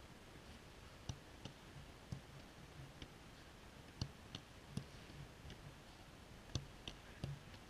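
Faint, irregular clicks and light taps, about ten in all, over a near-quiet background.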